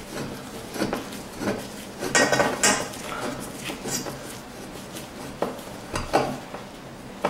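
Allen wrench turning the set screw in a metal curved-shower-rod wall bracket: irregular clicks and metal-on-metal scraping, with a cluster of louder clinks about two to three seconds in.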